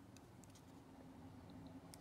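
Near silence: room tone with a few faint clicks from the plastic shaver body and heads being handled.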